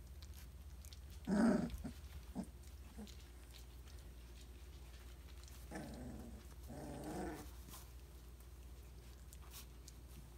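Three-week-old Briard puppies vocalizing: one short, loud yelp about a second in, then two longer, quieter growl-like calls around six and seven seconds in.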